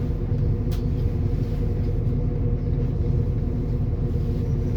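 Passenger train running, heard from inside the carriage: a steady low rumble with a faint steady hum, and one sharp click about 0.7 seconds in.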